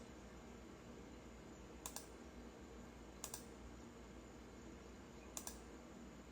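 Near silence of a quiet room, broken by three soft double clicks spaced about one and a half to two seconds apart.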